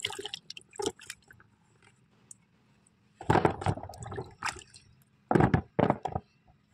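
Potatoes being washed by hand in a tub of water, then wet potatoes dropped into an empty plastic tub, landing with several separate knocks and wet splats.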